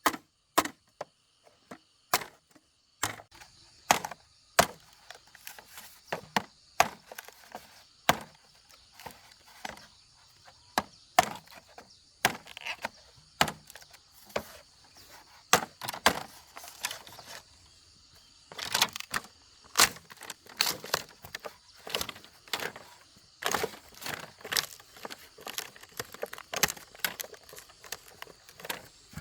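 Bamboo being chopped with a blade: repeated sharp, irregular blows, about one to two a second, with quicker flurries of strikes in the second half.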